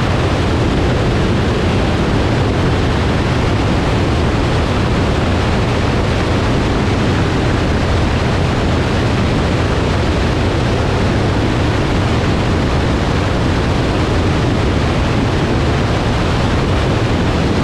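Steady rush of wind over a camera mounted outside a Grumman Tiger single-engine light plane in flight, with the low drone of its engine and propeller underneath.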